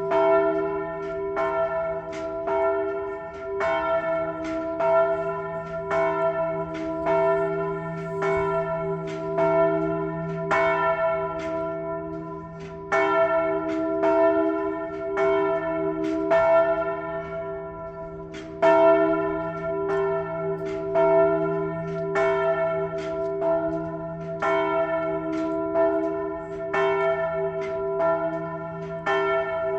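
Church bells pealing: quick, even strokes, about two to three a second, over the bells' lingering hum. The ringing eases briefly about seventeen seconds in, then comes back strongly.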